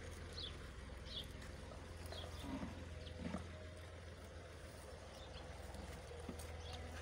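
Young goats feeding at a trough of fresh-cut green fodder, against a steady low rumble, with small birds giving short high chirps several times. Two louder dull knocks come about midway.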